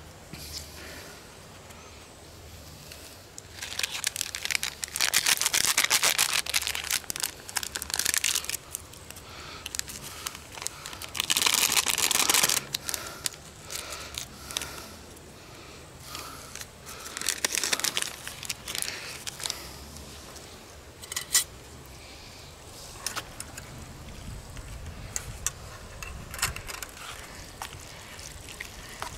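Plastic seasoning and sauce packets being torn open, squeezed and crinkled over a metal camp pot of pasta, in several rough bursts a second or two long, with light scrapes and clicks of a utensil against the pot between them.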